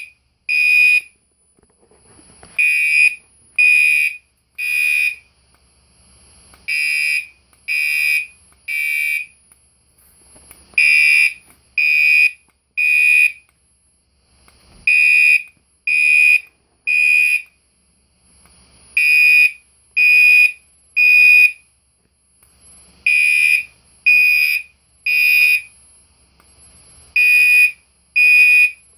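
Gentex Commander 4 (GCC24CR) fire alarm horn sounding loudly in the temporal code 3 pattern with its electromechanical tone: three half-second blasts about a second apart, a pause, then the next set of three, repeating about every four seconds.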